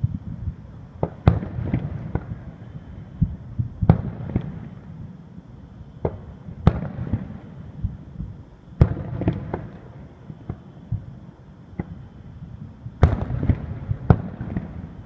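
Aerial firework shells bursting: a series of sharp booms a few seconds apart, with crackling and low rumble between them, coming thicker near the end.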